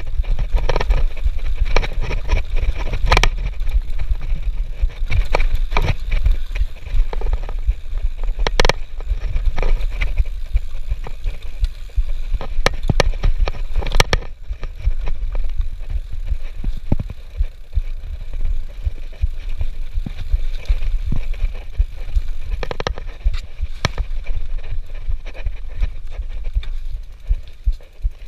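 Mountain bike being ridden over a rough dirt trail: tyres rolling on the ground with frequent sharp clatters and knocks from the bike over bumps, under a heavy rumble of wind on the microphone.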